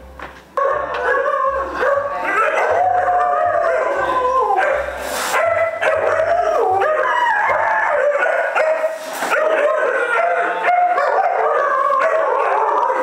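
Several husky and malamute puppies howling together in their crates, many overlapping howls rising and falling in pitch. It starts about half a second in.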